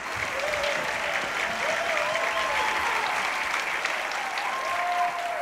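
A large audience applauding steadily, with a few faint voices calling out over the clapping.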